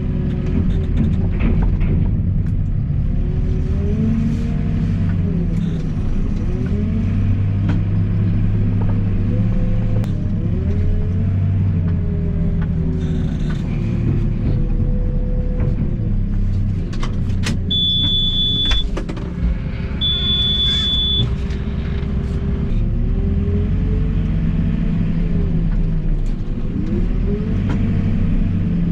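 A farm loader's diesel engine running under load, its pitch rising and falling again and again as the bucket and hydraulics are worked. A high, steady beep sounds twice, each about a second long, a little past the middle.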